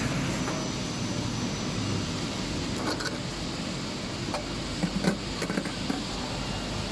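Steady drone of running factory machinery from a PET preform injection moulding line. A few light clacks of hard plastic preforms knocking together as they are handled come in about halfway through.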